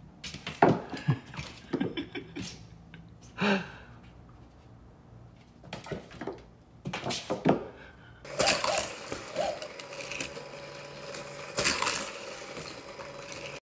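Scattered light knocks and taps, then from about eight seconds a small electric motor whirring steadily, as of a toy race car running on a plastic track.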